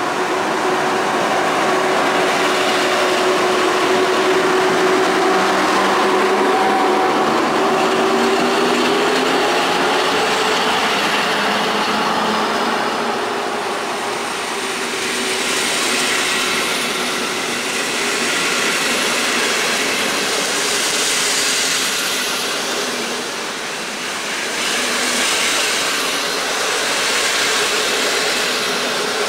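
Two PKP EP07 electric locomotives pulling an Intercity train away from the platform: a steady electric hum whose tones slowly rise in pitch as the train gathers speed over the first dozen seconds. The passenger carriages then roll past with steady wheel-on-rail noise.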